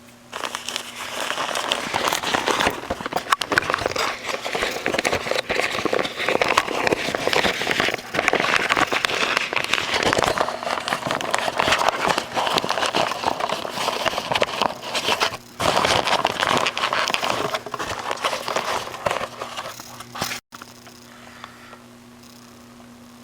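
A bag being handled, with loud, continuous crinkling and rustling that cuts off suddenly near the end, leaving a low steady hum.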